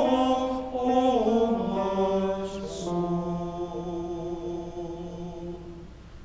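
Choir singing slow, held chords that step down in pitch; the final low chord fades away near the end.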